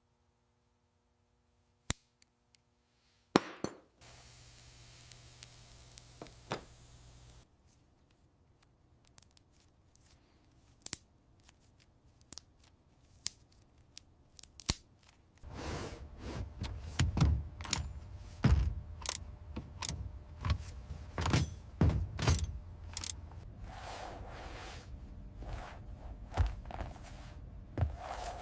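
Irregular sharp knocks and clicks, sparse at first with a short hiss about a third of the way in. From about halfway there is a dense run of heavier thuds over a low rumble.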